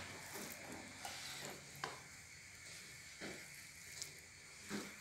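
Faint rustling and light pattering of diced vegetables being scattered by hand over a dish, with a few soft taps spread through.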